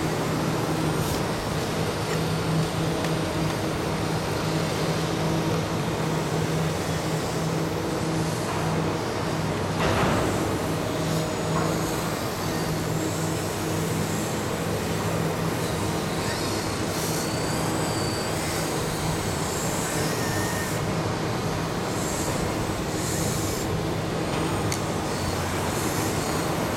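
Heavy machine's engine running steadily with a constant low hum, with a short burst of noise about a third of the way in and faint high squeaks in the second half.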